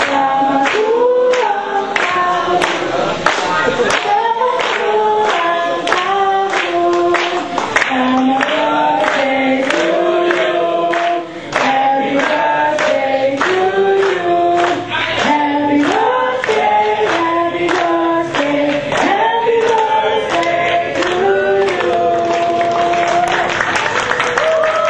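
A group of people singing a song together, clapping along in time about twice a second; near the end the singing gives way to cheering and applause.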